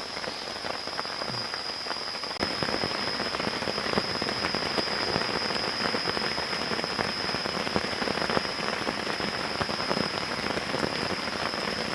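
Steady rain falling in the forest, a dense hiss made of many separate drop hits, growing heavier about two and a half seconds in. A steady high-pitched tone runs underneath.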